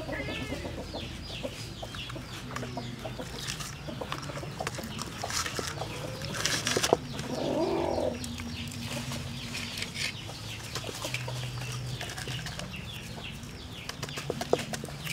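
Hands rubbing coarse salt into a whole fish and shifting it about in a metal pan, with small scrapes and knocks, the loudest a little before halfway. Chickens cluck in the background.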